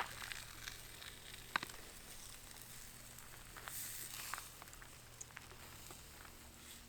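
Food sizzling in a pan on a camp stove: a faint steady hiss with scattered pops and crackles, one sharper pop about a second and a half in.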